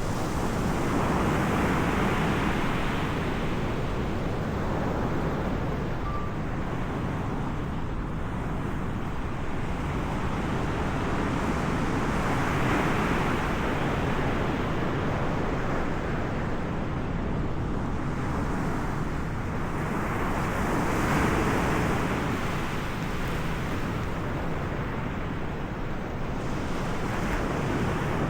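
Ocean surf breaking, a steady rush of noise that swells and fades every several seconds, with wind buffeting the microphone.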